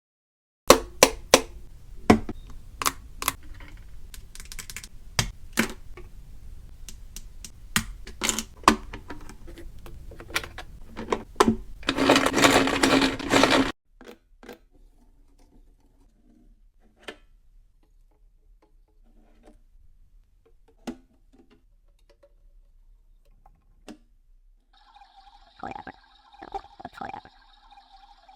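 Washing machine being handled: a run of sharp clicks and knocks over a low rumble, a brief loud rush of noise, then quiet with a few faint clicks. Near the end the machine sounds a steady electronic tone.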